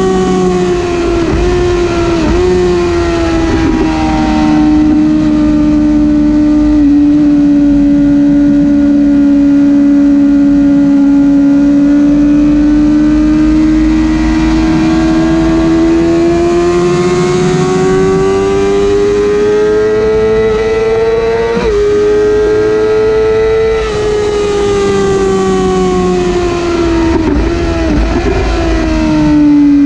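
Yamaha YZF-R6's 600cc inline-four engine, fitted with an Akrapovic exhaust, running at high revs under race load. The pitch sags and climbs as the bike goes through corners and straights, with brief dips at gear changes and a sharp break about two-thirds through, over a low rumble of wind on the bike-mounted microphone.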